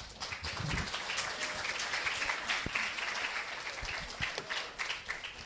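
Audience applauding, a dense patter of claps that thins out near the end.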